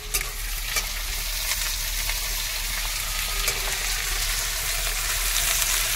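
Sliced onions and bay leaves sizzling steadily as they fry in hot oil in a metal kadhai, being softened. A few light clicks of a metal spatula stirring them come in the first two seconds.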